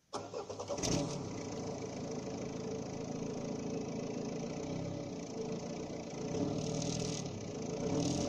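Citroën Xantia 2.0 HDi's four-cylinder common-rail turbodiesel being started: a short burst of cranking pulses, the engine catches about a second in, then runs on steadily with a couple of brief louder swells near the end.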